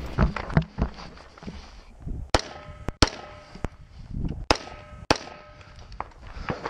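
Rifle shots from an AR-15-pattern rifle: four sharp reports about two to five seconds in, each followed by a brief metallic ring, with softer knocks before them.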